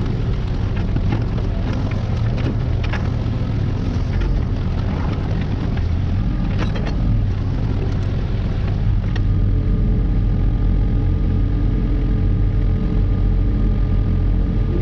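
Engine of a compact earthmoving machine running steadily under work, with scattered knocks and clanks in the first half. About nine seconds in, the engine note steadies and gets a little louder.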